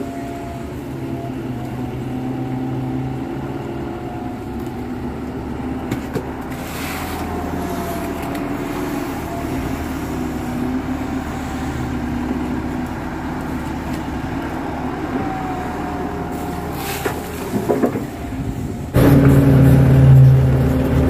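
KATO crawler excavator's diesel engine running steadily while the arm digs mud, with a whine that rises and falls in pitch. About 19 s in, the sound jumps suddenly louder and fuller, heard from inside the cab.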